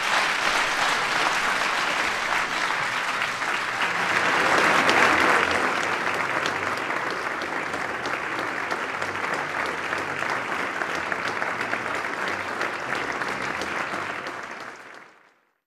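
Audience applauding, swelling to its loudest about five seconds in, then fading out at the end.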